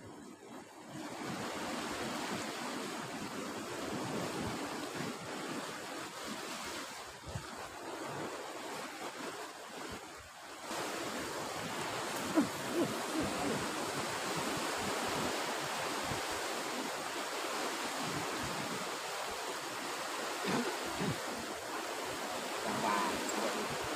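Steady sea surf washing below the cliff, mixed with wind buffeting the microphone.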